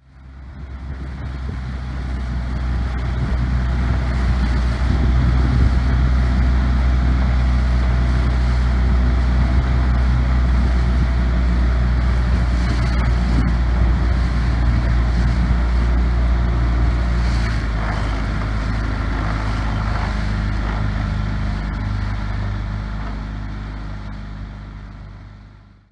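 A boat's outboard motor running at a steady speed, with rushing floodwater and wind on the microphone. It fades in over the first few seconds and fades out near the end.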